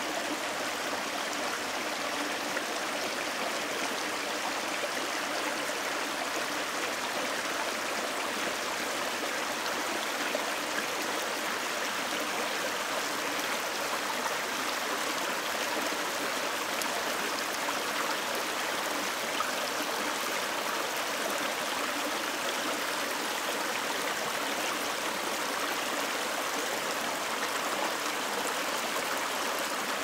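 Small waterfall spilling over rocks into a pool, a steady splashing of running water.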